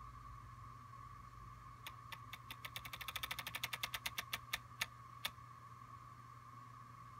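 Apple Watch Taptic Engine tapping out the Breathe app's inhale cue: a run of small clicks that speed up into a quick patter and then slow down again, stopping after about three and a half seconds. A faint steady high hum lies underneath.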